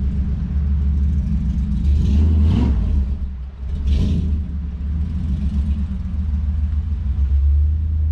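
A 1957 Chevrolet's engine running with a deep, steady rumble, revved up twice (about two and a half and four seconds in) as the car is driven through deep snow.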